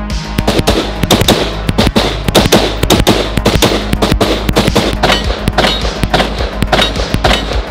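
Rapid rifle gunfire from an AR-15-style carbine, several sharp shots a second, over background music with a steady bass.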